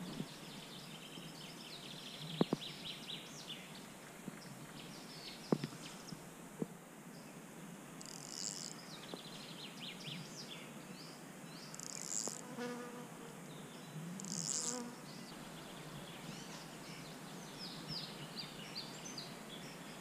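Flies buzzing close to the microphone, loudest twice around the middle, over a steady outdoor hiss with short high chirps throughout. Two sharp clicks in the first six seconds.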